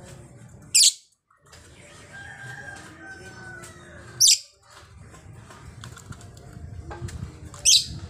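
Female blue masked lovebird giving three short, shrill shrieks a few seconds apart, with quieter bird sounds between them.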